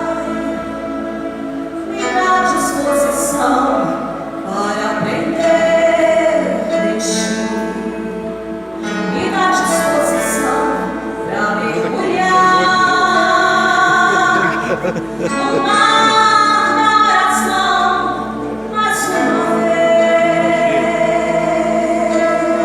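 Christian worship song: a group of female singers singing in harmony over instrumental accompaniment.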